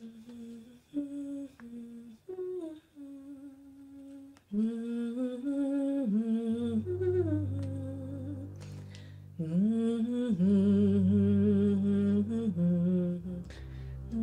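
A woman's voice humming a slow, wavering melody, soft at first and louder from about four and a half seconds in. A low steady drone comes in beneath it about six and a half seconds in.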